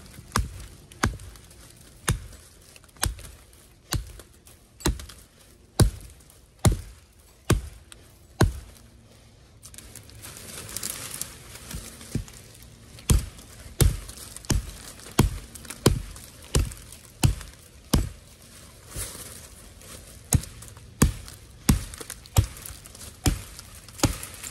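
Adler Canoe Axe's steel head chopping into the trunk of a small standing tree, sharp blows about once a second. After about eight seconds the chopping pauses while the tree tips over, with a rustling of branches and leaves, then the blows resume faster at the cut.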